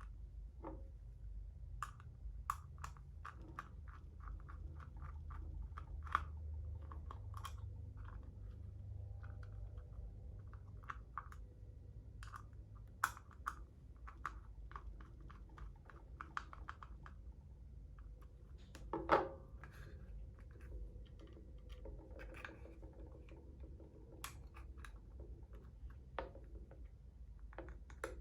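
Plastic MALICE Clip being pushed through MOLLE webbing and snapped into place on a hard case: irregular small clicks and taps, with one louder knock about two-thirds of the way through, over a low steady hum.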